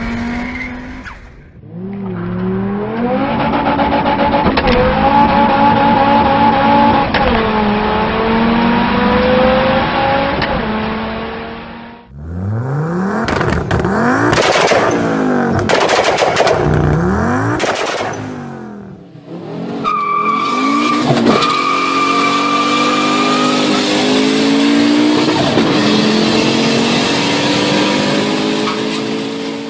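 Fiat Marea, Bravo and Brava engines in three clips. First, an in-car run with the engine pitch climbing and stepping through the gears. Then a parked Marea's exhaust revved up and down repeatedly, with sharp cracks between the revs. Last, another in-car acceleration with rising engine pitch under a steady high whine.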